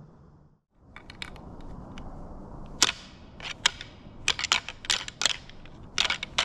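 A pair of deer antlers clashed and ground together by hand: irregular sharp clacks and ticks, light at first, louder and quicker from about three seconds in. It is antler rattling, done to imitate two bucks sparring and draw in a buck.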